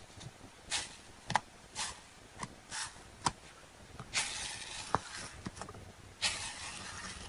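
Slime being worked by hand: a string of short, sharp clicks and pops, with two longer squishing hisses about four and six seconds in.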